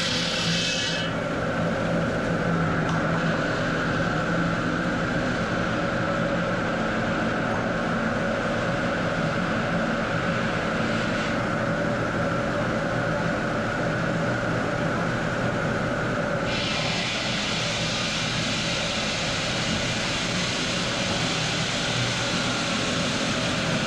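Stone-cutting machinery running steadily, a constant hum under a hiss that cuts out about a second in and returns in abrupt steps later.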